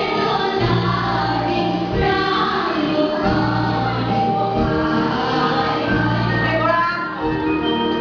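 Music: a song with sung vocals over a low, pulsing accompaniment, played for a children's dance.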